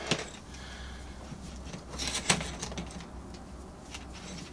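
Small clicks and knocks of things being picked up and handled on a workbench, with a quick cluster of sharp clicks about two seconds in.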